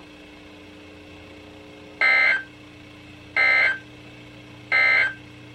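Three short, identical bursts of EAS SAME digital data screech from a weather radio's speaker, about 1.3 s apart: the end-of-message code that closes a warning broadcast. A faint steady hum lies underneath.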